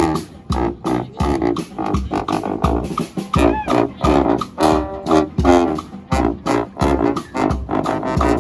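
Street brass band playing a tune: horns over a steady bass-drum beat.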